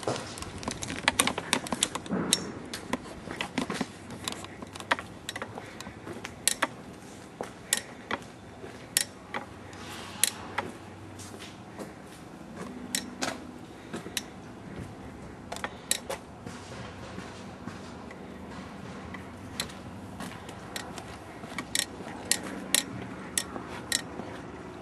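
Irregular sharp clicks and clacks of tie-down strap hardware being worked as the straps are fastened, some in quick runs of several clicks.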